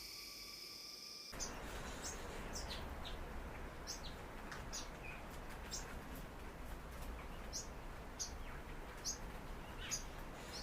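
Small birds chirping: short, high chirps repeating about every half second over a steady outdoor background hiss, starting about a second in.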